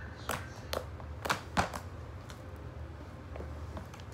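Sticky fluffy slime being pressed and kneaded by hand, giving sharp wet clicks and pops, four close together in the first two seconds and fainter ones after, over a low steady hum. The slime is still sticky, short of activator.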